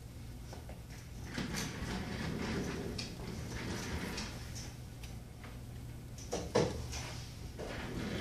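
Small clicks and scraping of a plastic pry tool working under a Samsung Galaxy S5's glass, loosening it from the adhesive, with one louder knock about six and a half seconds in.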